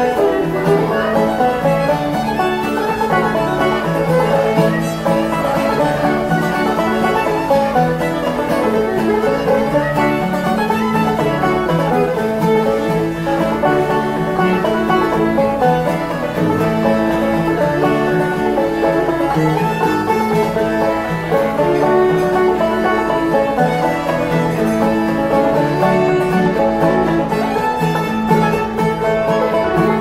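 Fiddle, banjo and acoustic guitar playing an instrumental string-band tune together, at a steady level throughout.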